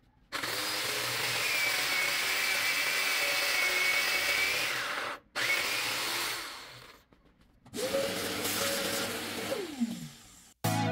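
Power drill boring dowel holes into a wooden table skirt through a drilling jig, running steadily in three stretches; near the end the motor winds down with a falling pitch.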